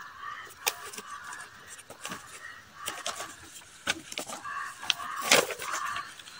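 Chickens clucking in the background, with sheets of paper rustling and crinkling as documents are handled, the sharpest crackle about five seconds in.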